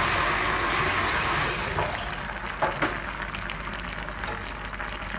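A rush of liquid noise that eases off after about two seconds, with two light clicks near the middle.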